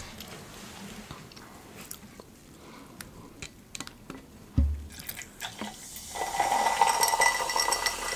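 A few soft clicks and a dull thump, then Coca-Cola poured from a bottle into a glass. The soda fizzes and crackles from about six seconds in as a thick head of foam rises.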